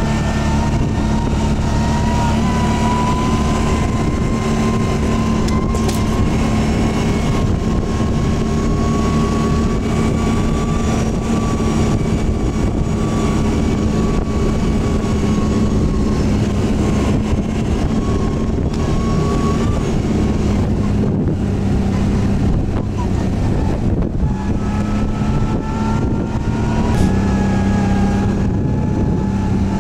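ATV engine running steadily while riding, its pitch rising a little in the first few seconds and shifting again near the end.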